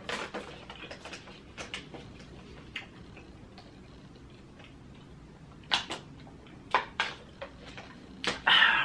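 Handling of a thin plastic water bottle: scattered clicks and crinkles of the plastic, a quiet stretch in the middle, then a few sharper clicks later on.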